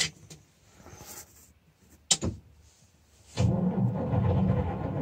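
Volvo TD61ACE six-cylinder turbo diesel in an Åkerman H7M excavator, cold-started. A few sharp clicks come first, then about three and a half seconds in the engine catches and runs on roughly and steadily. The owner puts the reluctant cold start down to summer diesel in the tank.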